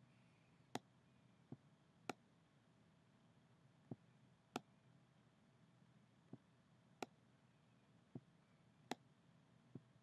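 Computer mouse button clicking about ten times at uneven intervals as letters are drawn stroke by stroke with the mouse, the clicks alternating louder and softer, with faint room hiss between.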